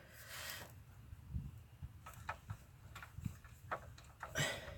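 Faint, scattered clicks and light metal taps of hand tools and the drain plug being worked loose under the engine sump, a few irregular ticks a second at most.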